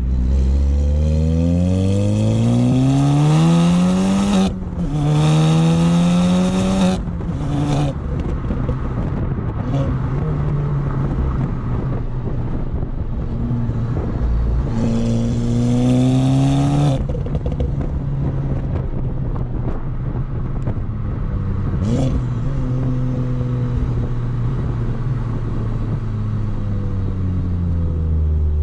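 Exhaust of a 2016 VW Golf R's turbocharged 2.0-litre four-cylinder, running a catless downpipe ahead of the stock resonator and rear muffler, heard from the rear of the moving car. It pulls hard with rising pitch, breaks off briefly for an upshift about four and a half seconds in, pulls again, then settles into a steady cruise drone. A second shorter pull comes around the middle, and one short sharp sound a few seconds later.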